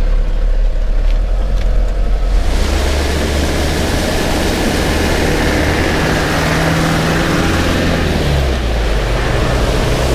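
A Land Rover engine running low and muffled. About two and a half seconds in, a steady rush of splashing water takes over as a Land Rover Defender drives through a shallow river ford, its engine note climbing and then dropping back near the end.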